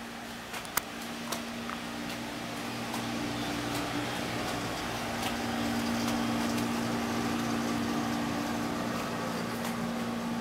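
Steady mechanical hum with two close tones over a rush of air noise, with a few sharp clicks in the first second or two.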